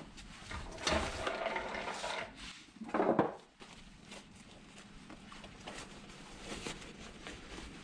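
A football boot is worked off a shoe last and handled, with rustling and scraping of the upper. There is a louder scrape about three seconds in, then quieter handling.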